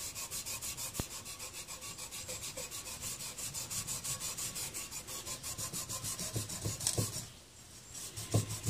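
A green Scotch-Brite abrasive pad scrubbing back and forth along a garden hoe's metal shank to clean it up, in quick, even strokes about four a second. The scrubbing stops briefly about seven seconds in, then starts again.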